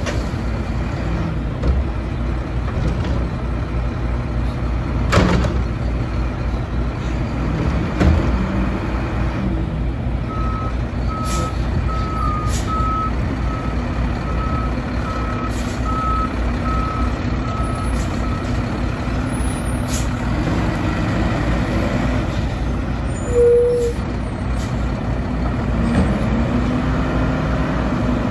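Mack LR front-load garbage truck running, with two sharp bangs of the dumpster being shaken out over the cab, then its reversing beeper sounding about once a second for some eight seconds as it backs up. Near the end a brief sharp blip, and the engine revs up as the hydraulic arms lift.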